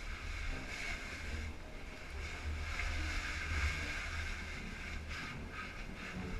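Rustling and scraping of a caver's suit and body against the rock while sliding through a narrow cave passage, heard close with low rumbling handling noise.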